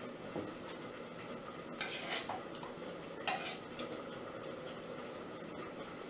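Metal slotted spoon clinking and scraping against a stainless steel pot and mixing bowl while boiled neck bones are ladled out: two short clusters of clinks a little over a second apart.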